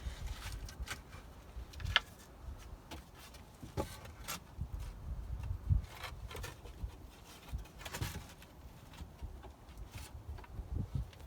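Irregular knocks, taps and clatter of hand building work, with a low rumble underneath and one sharper, ringing knock about two seconds in.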